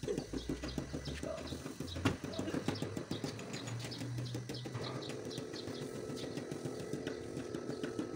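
A car trunk lid being shut with a single sharp thump about two seconds in, over a fast run of clicking. From about halfway through, a steady hum comes in.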